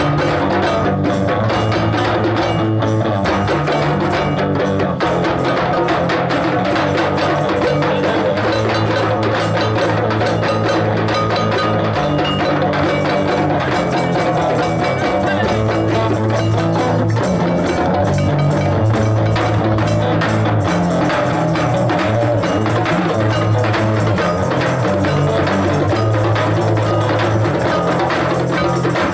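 A djembe drum circle, many hand drums playing together in a dense, steady rhythm. Underneath run sustained low bass notes that change pitch every few seconds.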